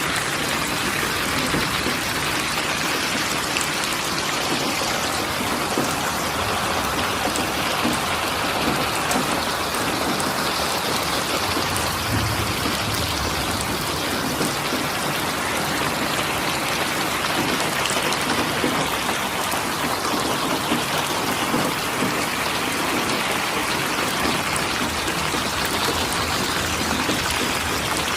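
Steady rain falling, an even rush of many drops.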